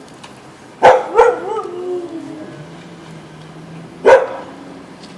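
Husky barking twice, about three seconds apart. The first bark trails off into a wavering, falling yowl.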